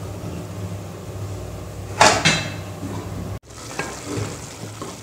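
Spiced water simmering in an aluminium pressure cooker, a light bubbling hiss over a steady low hum. About two seconds in comes a short, loud metallic clatter of the pot, and after a cut a few faint taps of a spatula against the pot.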